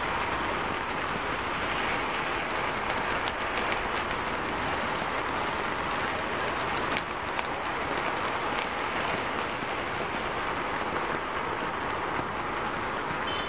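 Heavy rain falling steadily, an even hiss with a few faint ticks.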